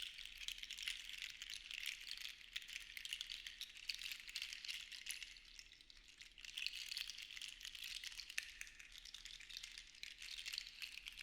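Seashells rattling and clinking against each other in a dense stream of fine clicks, swelling and easing in slow waves, with a softer lull about halfway through before it builds again.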